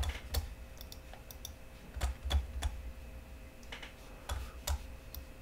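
Quiet, scattered clicks of a computer keyboard and mouse, coming in small groups of two or three.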